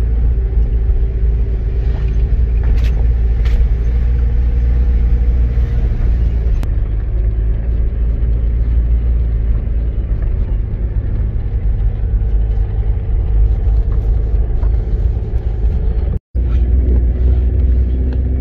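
Steady low rumble of engine and road noise heard inside a moving car's cabin, with faint engine tones above it. It breaks off for a split second about sixteen seconds in.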